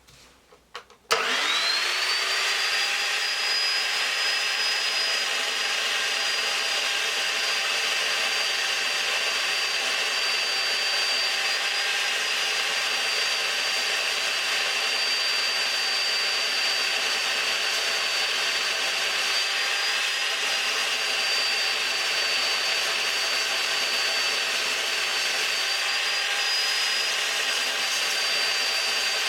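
Evolution R355 chop saw with its carbide-tipped blade, switched on about a second in. Its motor spins up with a quickly rising whine, then runs steadily at speed while the blade cuts through quarter-inch mild steel plate, the pitch dipping slightly now and then under the feed.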